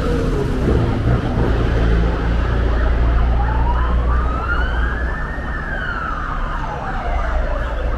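Emergency vehicle siren wailing, one slow rise and fall in pitch over about five seconds, peaking about halfway through, over a steady low rumble of road traffic.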